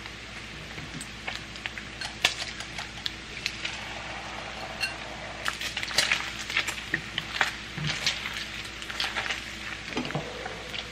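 Bacon frying in a pan, its grease sizzling and crackling with many sharp pops, more of them in the second half. Tongs and a spatula click and scrape against the pans as the bacon is turned and the eggs are stirred.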